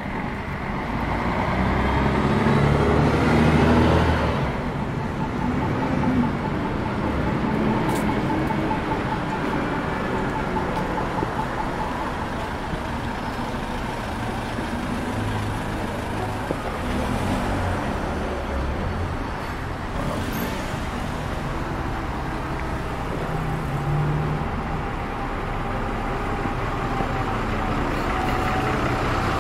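Street traffic: cars, vans and buses passing on a city road, with a heavy vehicle going by loudest about two to four seconds in.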